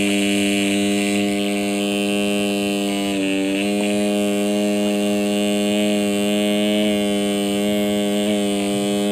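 Two small brushed DC motors coupled shaft to shaft are running with a steady electric hum, one driving the other as a generator. The hum dips briefly about three seconds in.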